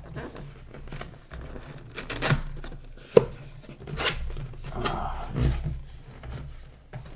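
A cardboard box being opened and handled: scraping and cutting sounds with scattered knocks, a sharp knock about three seconds in.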